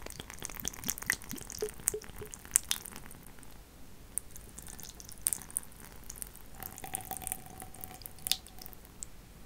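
Water poured in a thin stream from a glass carafe into a wooden bowl lined with a towel, trickling and splashing with many small drips.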